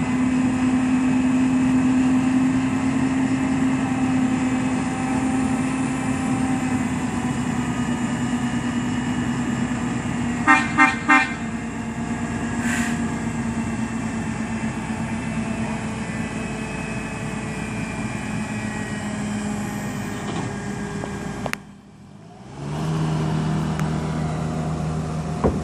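Heavy equipment's engine running steadily, with three quick horn toots about ten seconds in. Near the end the sound drops away for about a second, then the engine comes back.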